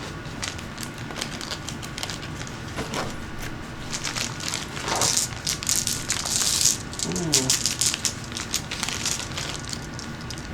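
Plastic bag of smoky quartz stones being handled and opened: crinkling and crackling with quick clicks, loudest a little after halfway.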